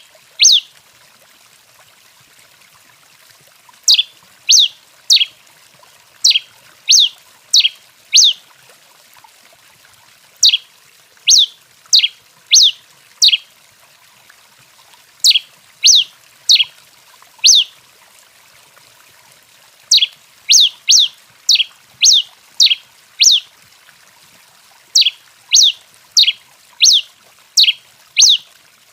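Pileated finch (tico-tico-rei) calling: short, sharp, high notes that sweep downward, given in quick bursts of five to seven, with a burst about every five seconds.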